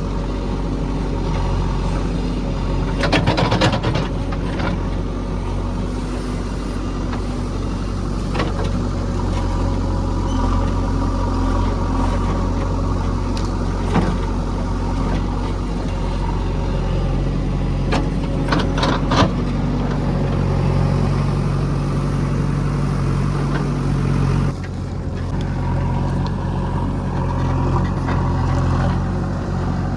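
Heavy diesel engine running steadily, with several short clanks and knocks scattered through. The engine note changes about 24 seconds in.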